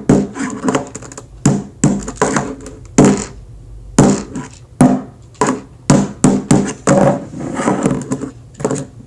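Small hammer tapping a Rubik's Cube piece back into the cube: a quick run of sharp, knocking taps, several a second, with a short pause about three seconds in.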